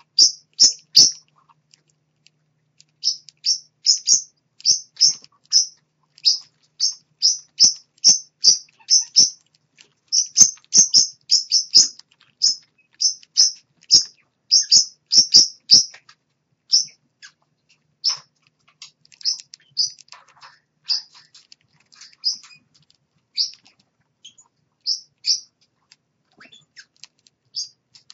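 Baby parrots in a nest bowl chirping: short, high chirps two or three a second in runs, thinning out after about sixteen seconds.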